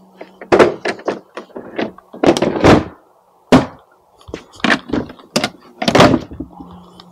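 Keter folding workbench being unfolded and set up: a series of sharp clunks and knocks as the frame and legs are opened out and locked into place, some in quick clusters of two or three.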